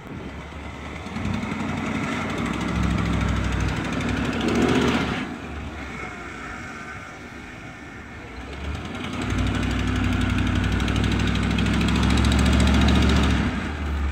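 Ford pickup truck's engine revving under load as it crawls up a steep dirt climb, in two surges. The first builds to a peak about five seconds in and falls away. The second, longer and louder, starts about nine seconds in and drops off near the end.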